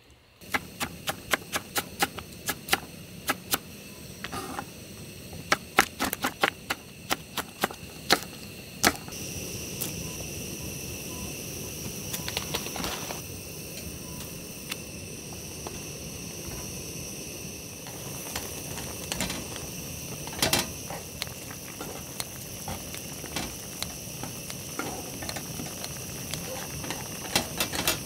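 A quick run of sharp knocks, about three a second, for the first nine seconds. Then a steady hiss with a high, even whine and scattered clicks.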